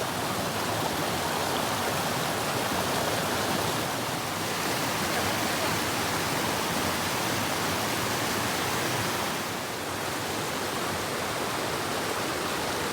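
Steady rush of flowing water, an even noise with no distinct events.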